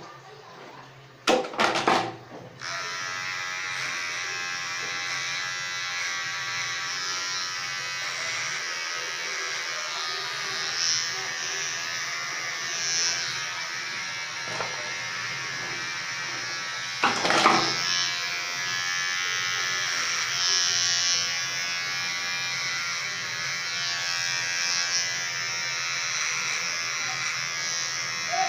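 Handheld electric hair trimmer: after a few loud handling knocks near the start, its steady buzz starts and runs on as it is passed through the hair. Another loud knock comes a little past halfway.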